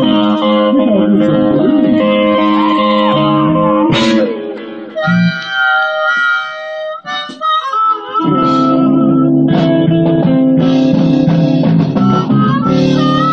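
Live blues band music, with a harmonica (blues harp) playing lead over electric guitar. The band thins out for a few seconds around the middle, leaving sparse phrases, then comes back in full.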